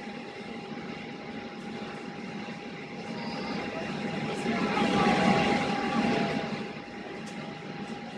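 Jet engine noise heard inside the cabin of a taxiing Boeing 737-800, a steady hum with one steady tone, swelling louder about four to six seconds in and then falling back.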